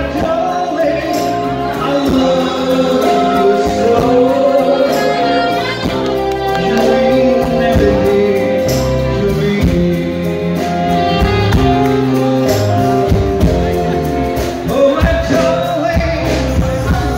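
A man singing into a microphone with a live band accompanying him, over a steady beat.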